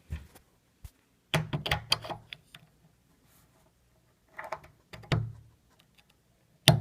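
Kwikset door handle parts clicking and knocking against each other and the door as a piece is pushed in through the door's bore: a quick run of clicks, a few more knocks, then one sharp click near the end.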